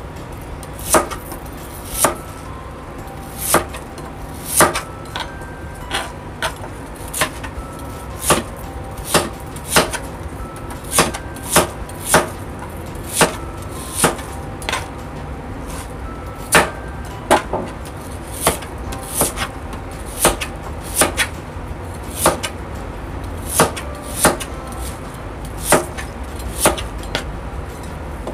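Chef's knife slicing through a peeled Chinese yam and striking a plastic cutting board: a run of sharp, unevenly spaced chops, about one and a half a second, over a low steady hum.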